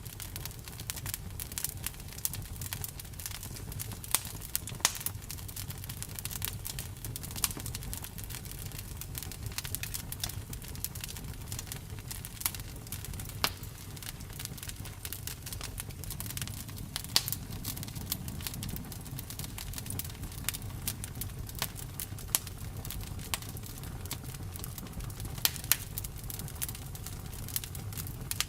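Campfire burning: a steady low rumble of the flames with frequent irregular crackles and sharp pops of burning wood.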